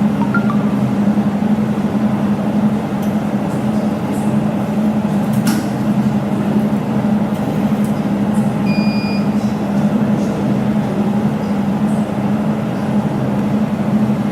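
Laser jewelry welding machine running after start-up: a steady, even hum from its cooling and power units.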